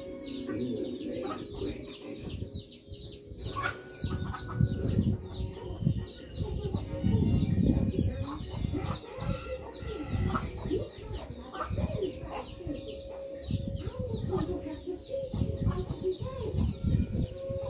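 Chickens clucking and small birds chirping, with quick, short high chirps several times a second throughout. Under them run irregular low bumping and rustling noises, loudest around the middle.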